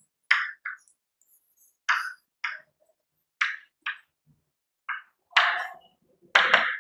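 Chalk writing on a chalkboard: about nine short scratching strokes, irregularly spaced, as words are written out letter by letter.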